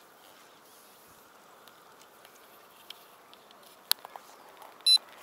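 A sharp click, then about a second later a single short, high electronic beep from an electronic bite alarm on a ledger rod as the rod is handled. A faint steady hiss lies underneath.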